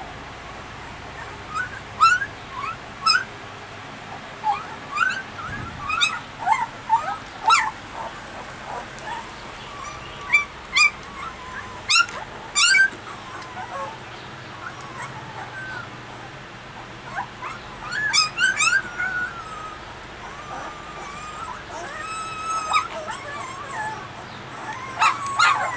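Newborn Armenian Gampr puppies crying while they nurse: short, high-pitched cries with sliding pitch, scattered through and often coming several in quick succession.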